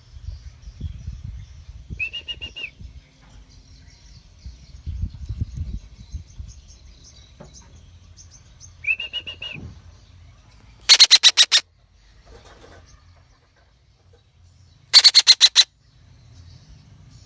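Young betet (red-breasted parakeet) calling: two loud bursts of rapid, high notes, each about half a second long, in the second half, and two softer pulsed calls earlier. Low rumbling noise in the first half.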